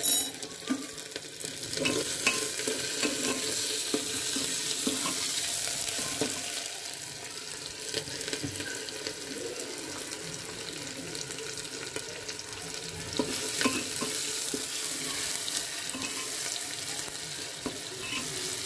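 Chopped onions and ginger-garlic paste sizzling steadily in hot mustard oil in an aluminium pressure cooker, with a metal spoon scraping and stirring now and then.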